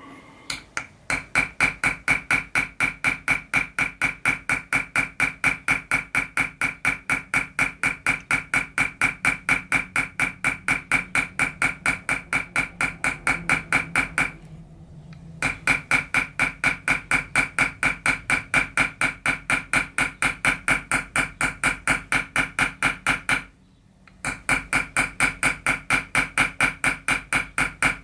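Chasing hammer tapping a steel chasing punch in quick, even strokes, about four a second, driving it into 0.6 mm copper sheet set in chaser's pitch; each strike carries a short metallic ring. The tapping stops briefly twice, about halfway through and again a few seconds before the end.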